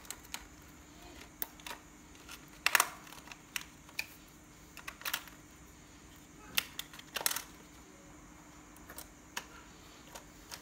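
Scattered plastic clicks and taps as batteries are fitted into a plastic remote-control toy, with two louder clacks about three seconds in and about seven seconds in.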